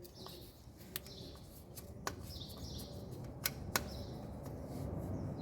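A few sharp clicks and taps from handling the second carbon brush and its holder on a washing machine's universal brush motor, with small birds chirping in the background.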